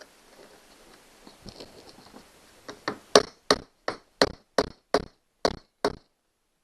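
A run of about nine sharp knocks, roughly three a second, starting near the middle, after a few seconds of faint handling noise.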